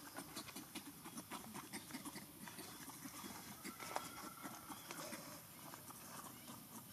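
Macaques moving about in dry leaf litter: scattered soft clicks and rustles, with a short thin call about three and a half seconds in.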